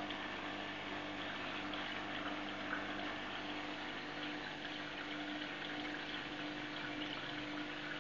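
Saltwater aquarium's circulation pump and filtration running steadily: a constant hum under an even hiss of moving water.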